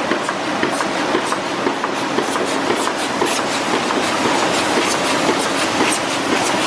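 A 2004 Manroland R 708 eight-colour sheetfed offset press running, a steady mechanical clatter full of rapid clicks and ticks.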